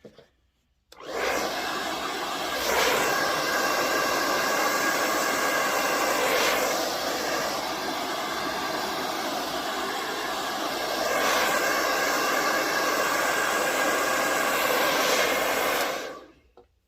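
Handheld hair dryer (blow dryer) running steadily for about fifteen seconds, with a few brief swells, switched on about a second in and off near the end. It is drying the melt spray adhesive on a wig's lace.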